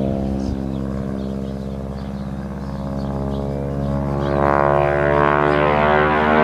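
Single-engine propeller plane flying aerobatics overhead, its engine giving a steady pitched drone that grows louder and brighter about four seconds in as the plane comes nearer.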